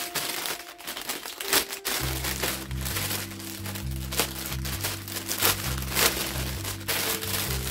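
Clear plastic packaging bag crinkling in the hands, in irregular crackles, as a wire shower corner tray is pulled out of it. Background organ music with held chords comes in about two seconds in.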